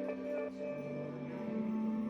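Calm background music of long held notes.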